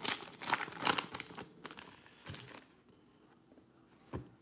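Foil wrapper of a basketball trading-card pack crinkling and tearing as it is ripped open, in a run of rustles over the first couple of seconds and a shorter one a little later.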